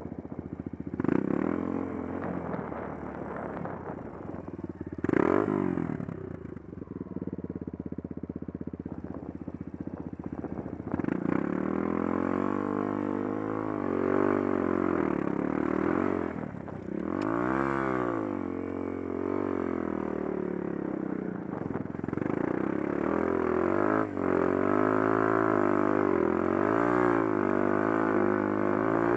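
Off-road vehicle's engine revving up and down again and again while driven hard through a river crossing. There is a short loud burst about five seconds in.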